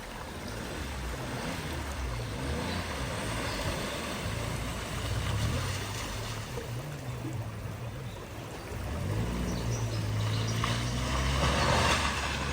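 A vehicle's engine running as it drives through deep water across a flooded ford, the water rushing and splashing around it, with the splashing loudest near the end.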